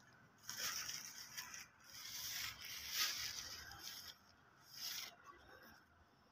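Peacock pecking food off a tiled floor: faint scraping and rustling of beak on tile in a few short bursts.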